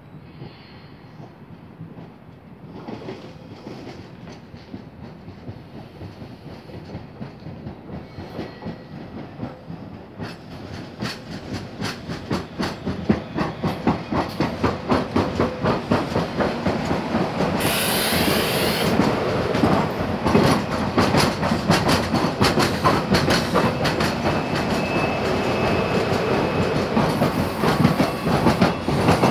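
SEPTA Silverliner V electric multiple-unit train rolling in on flat wheels: a rapid, rhythmic pounding from the wheel flats that grows steadily louder as the cars come alongside. A brief hiss cuts in about eighteen seconds in.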